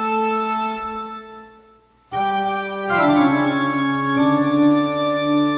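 Pipe organ voice of a Yamaha PSR-S910 arranger keyboard playing sustained chords: one chord held and released after about two seconds, then after a brief gap a new chord that moves down to a lower chord and is held.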